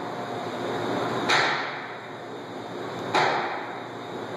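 Two sharp bangs about two seconds apart, each ringing briefly, from a toddler pushing and knocking against a glass door in its frame, over a steady low hum.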